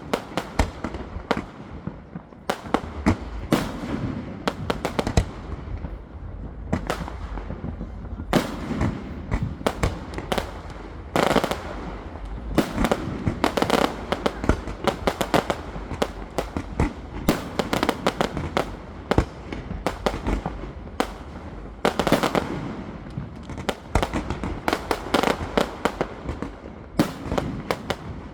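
Fireworks display: aerial shells bursting in rapid, irregular volleys of sharp bangs over a continuous low rumble, with the densest clusters near the middle and toward the end.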